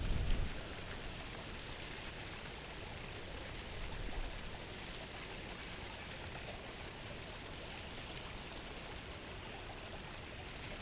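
Small river flowing steadily past, a soft, even rush of water. A brief bump of handling noise on the chest-mounted camera in the first half-second.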